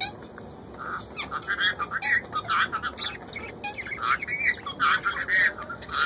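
Birds chirping: a busy run of short, quick calls, several a second and overlapping, starting about a second in.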